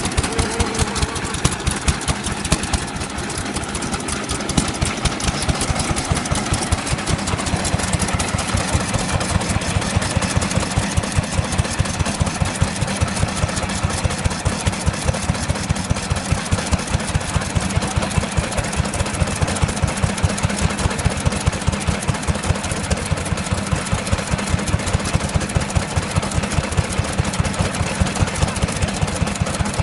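Kubota Type F stationary engine running steadily at a slow, even speed, with a regular beat of loud exhaust pulses about twice a second.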